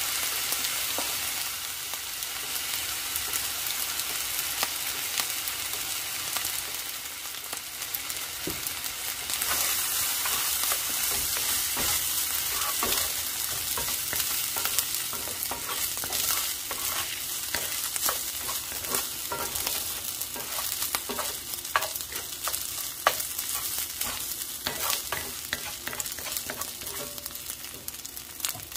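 Chicken fried rice sizzling in hot oil in a cast-iron skillet, with a steady high hiss, while a bamboo spatula stirs and scrapes it around the pan, adding short sharp clicks and taps that come more often in the second half.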